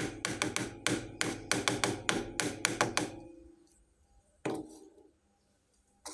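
Small toy kitchen pieces being tapped and knocked together: a quick run of sharp taps, several a second, for about three seconds, then a single knock with a short ring about four and a half seconds in.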